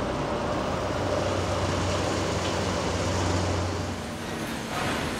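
Large lumber forklift's engine running steadily with a low hum, easing off about four seconds in.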